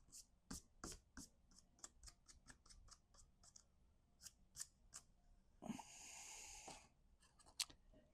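Faint handling of cardstock paper pieces: a scattered run of small ticks and taps, then a rustle lasting about a second, and one sharper click near the end.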